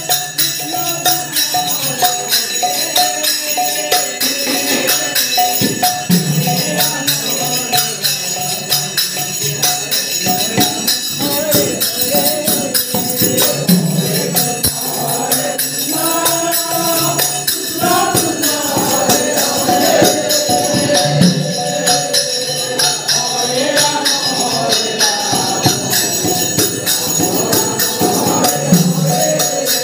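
Naam sankirtan: a group of men singing a repeated devotional chant of the divine name to a two-headed mridanga drum and small brass hand cymbals, which keep up a steady fast jingling beat. The chant comes round in a cycle of about seven to eight seconds.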